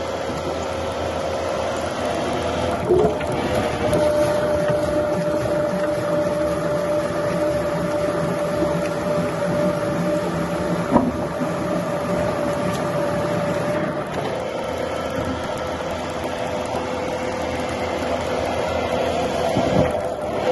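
Sawmill or wood-cutting machinery running steadily with a constant hum and a steady whine, with a couple of brief knocks, about 3 and 11 seconds in.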